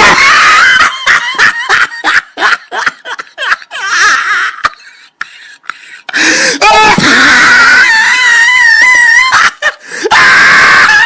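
Loud, high-pitched human voices screaming and laughing, with a long wavering high cry in the second half.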